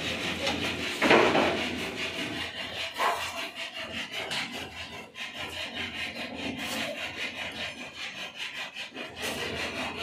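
Steel trowel scraping wet cement mortar on a board and against a wall in many quick strokes, loudest about a second in.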